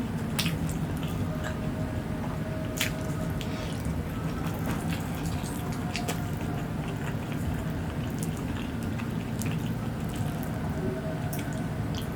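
Close-miked eating: wet chewing and squishing of mouthfuls of fried tempe with sambal, with scattered small clicks, over a steady low background hum.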